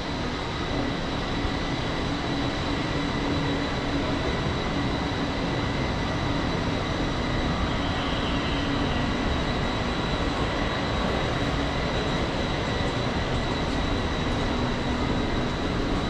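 Steady background noise of an indoor shopping-mall concourse: an even low rumble and hiss with a faint constant high whine.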